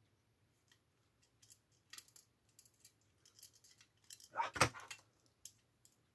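Faint, scattered clicks and small rattles of small metal bolts and hard plastic model parts being handled while fitting a motor bracket into a model dozer chassis, with a louder burst of knocking and rattling about four and a half seconds in.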